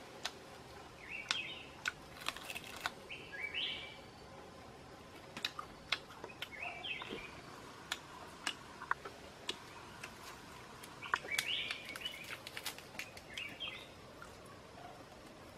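Birds chirping in short calls every few seconds, with many scattered sharp clicks and taps in between.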